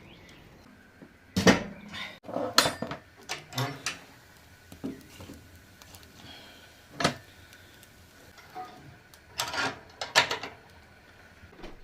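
Kitchenware being handled: a string of separate clatters and knocks of dishes, pots and utensils, some close together and some several seconds apart.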